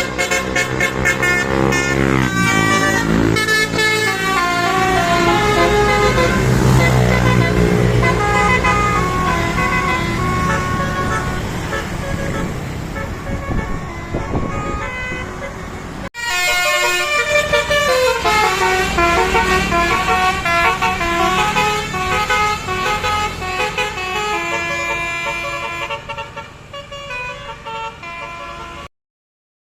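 Indonesian bus telolet horns playing melodic tunes of short stepping notes over a bus engine's low running. The sound breaks off suddenly about halfway through and another horn melody starts, stopping shortly before the end.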